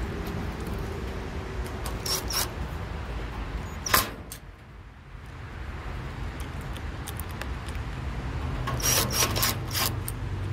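Sharp metallic clicks and clinks from handling a gas dryer's metal parts and screws during reassembly: a few about two seconds in, one loud click near four seconds, and a quick cluster near nine seconds, over a steady low rumble.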